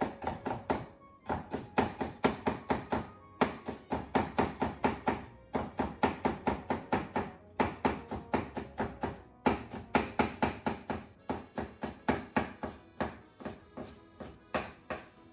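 Chef's knife cutting cucumber slices into thin strips on a wooden cutting board. Quick knocks come about four to five a second, in runs broken by short pauses.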